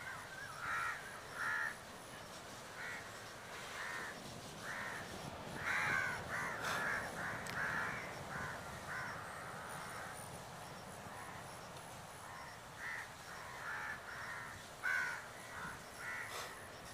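A bird calling over and over: short notes, some single and some in quick runs, loudest about six seconds in and again near fifteen seconds.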